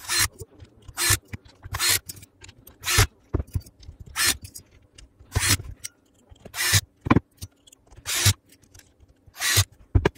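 Hand screwdriver driving screws into a cordless drill's plastic housing: a short scraping squeak with each twist, about once a second.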